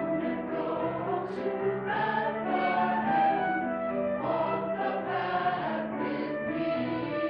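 Church choir singing, with held notes that change every second or so.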